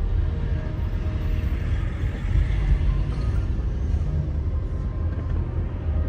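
Car driving along a road: a steady low rumble of road and engine noise, with a swell of higher tyre hiss about two seconds in.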